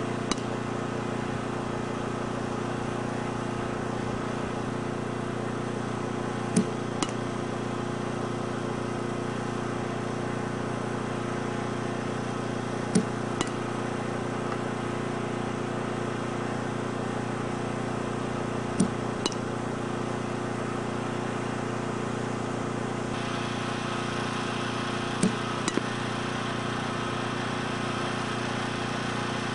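Softball batting practice: a sharp crack of a bat hitting a pitched ball about every six seconds, five times, each crack paired with a second, fainter click about half a second away, over a steady mechanical drone.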